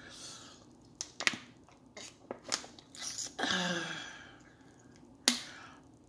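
A person chewing a mouthful of food with lips closed, close to the microphone: a scatter of short wet mouth clicks and smacks. There is a breathy sound about three and a half seconds in and one sharper smack near the end.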